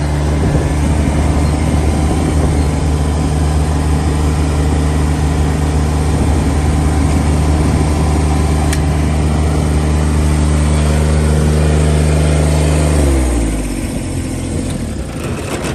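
Kubota BX2350D compact tractor's three-cylinder diesel engine running steadily, then its speed falls off about thirteen seconds in.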